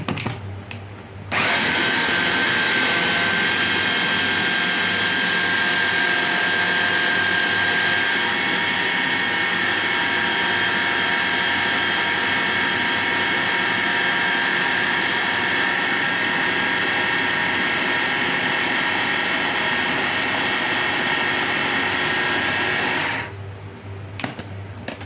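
Electric food chopper running steadily with a constant motor whine, blending boiled millet, eggs and spices into a batter. It starts about a second in and cuts off near the end.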